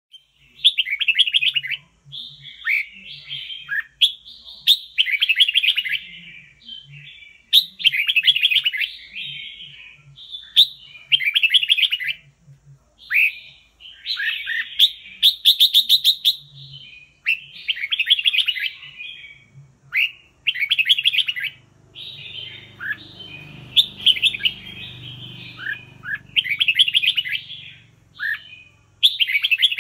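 Red-whiskered bulbul singing: short, loud warbled phrases repeated every one to two seconds, with brief gaps between them.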